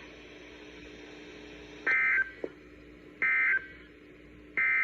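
Emergency Alert System end-of-message code over weather radio: three short, identical bursts of warbling data tone, about a second apart, after a couple of seconds of faint hiss and a steady low hum. The end-of-message code marks the close of the severe thunderstorm warning broadcast.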